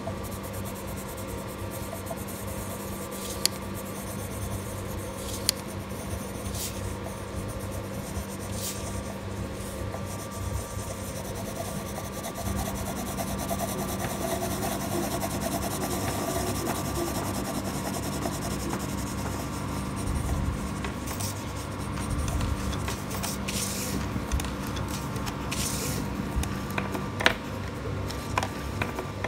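Pencil rubbing and scratching on paper as a drawing is coloured in, with a few light taps, over a steady low hum.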